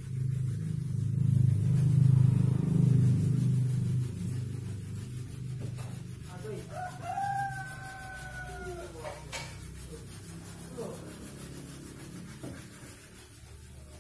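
A rooster crowing, one drawn-out crow about halfway through, with fainter calls later. Before it, in the first few seconds, a low rumble that is the loudest sound.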